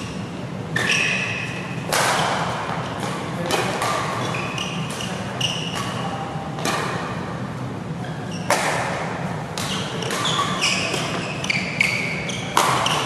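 Badminton rackets striking a shuttlecock back and forth in a fast doubles rally, a sharp crack about once a second, with short squeaks of shoes on the court mat between the hits.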